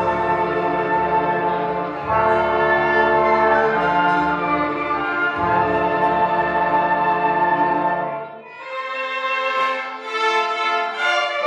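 Orchestral music with brass, held chords over a full bass; about eight seconds in the low instruments drop out and a quieter, higher passage follows.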